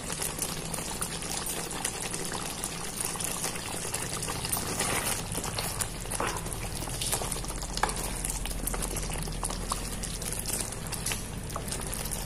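Thick butter chicken gravy simmering in a pot, bubbling and popping softly, while a wooden spatula stirs through it.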